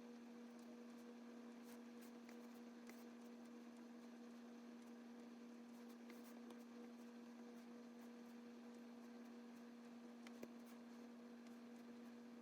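Near silence: a faint steady electrical hum, with a few faint scattered ticks.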